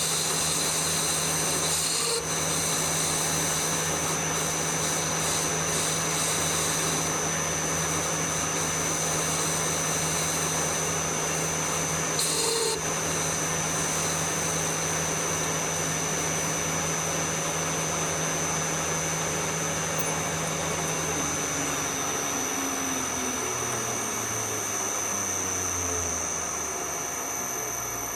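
Lathe running steadily with a constant motor hum and a high whine, then winding down, its pitch falling, over the last several seconds as it coasts toward a stop.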